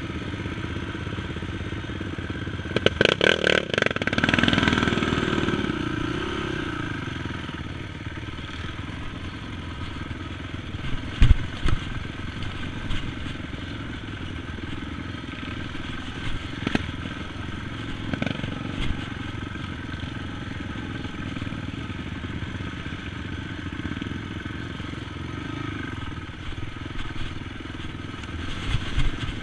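Single-cylinder four-stroke engine of a Honda TRX450 sport quad running along a rough dirt trail. A quick run of clicks about three seconds in is followed by a rise and fall in engine pitch. Scattered knocks and thuds from the bumpy ground follow, the loudest about eleven seconds in.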